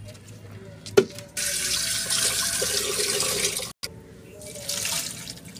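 Hot water poured from a cooking pot through a plastic colander, draining boiled kachnar (bauhinia) buds. A sharp knock about a second in, then a steady pour lasting over two seconds that cuts off suddenly, and a shorter pour near the end.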